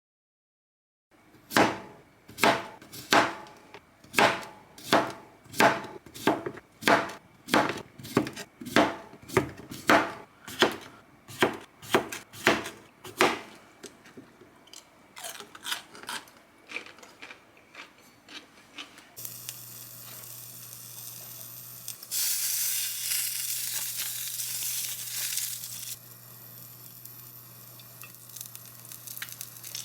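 A knife chopping on a wooden cutting board, in steady strokes about every half second that slow and thin out partway through. Then a steady low hum comes on with a hiss that swells for a few seconds.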